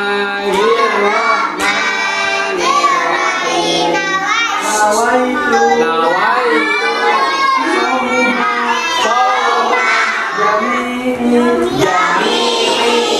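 A song sung by children's voices over a musical accompaniment, the melody moving continuously with held notes underneath.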